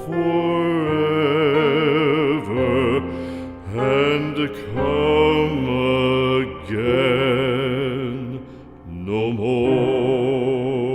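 Music: a solo voice singing long held notes with strong vibrato in four or five phrases with short breaks between them, over a sustained low accompaniment.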